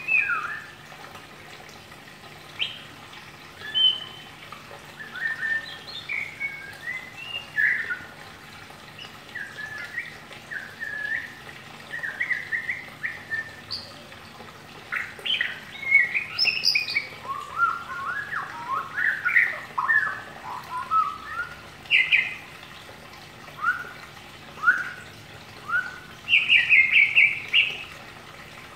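Caged white-rumped shama (murai batu) singing ngeriwik: short scattered chirps and whistled notes, thickening into quick runs in the middle, with a loud rapid burst of notes near the end.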